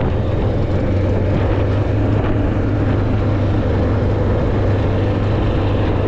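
An engine running steadily: an even, low drone that holds at the same pitch and level throughout.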